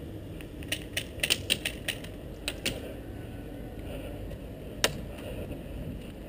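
Airsoft guns firing a quick, irregular string of sharp snapping shots, about ten in two seconds, then one more shot a couple of seconds later, over a steady low rumble of wind on the microphone.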